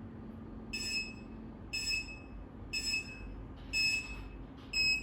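LED wall clock's countdown buzzer beeping: four short high-pitched beeps about a second apart, then quicker beeping starts near the end, the alarm for the countdown running out.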